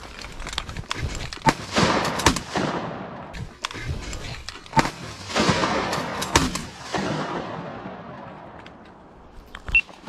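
Shotgun shots during waterfowl hunting, a few sharp blasts in two groups, each followed by a long rolling echo that fades over a second or two.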